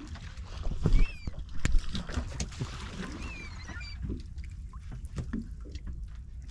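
Water sloshing and slapping against a small boat's hull under a steady low rumble, with sharp knocks about one second and nearly two seconds in. Short, high squeaky chirps that slide down in pitch are heard through the first four seconds.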